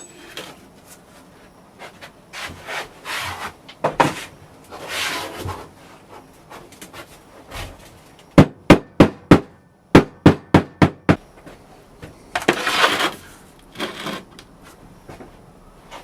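Sand in a casting flask being scraped and pushed about, then two quick runs of sharp knocks on wood, five or six each at about five a second, as the sand is packed down around the pattern. Another scrape comes near the end.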